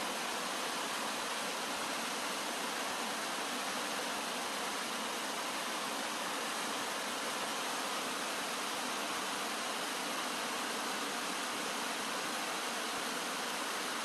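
Shallow stream flowing over rocks and stony riffles: a steady, even rush of running water.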